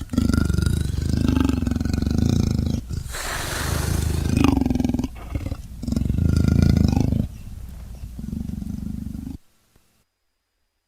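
A string of about four drawn-out big-cat roars from sound-effect recordings, one after another.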